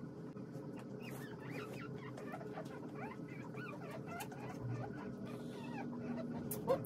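Newborn American bully puppies squeaking and whimpering: many short, high squeaks that rise and fall, overlapping, with one louder yelp near the end.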